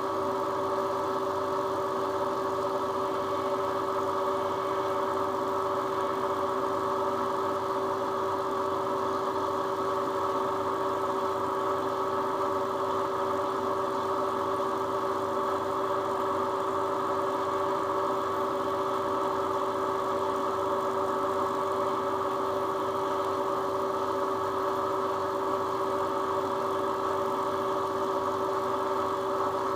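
Knee mill spindle running at a steady speed with an even machine whine, turning a sensitive drill chuck while a fine drill bit is hand-fed into a small engine cylinder head.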